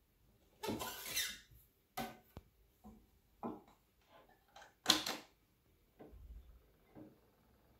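Handling noises of a Homocord portable wind-up gramophone, worked at its crank and its tonearm and soundbox: a few separate scrapes, clicks and knocks, the loudest a sharp knock about five seconds in.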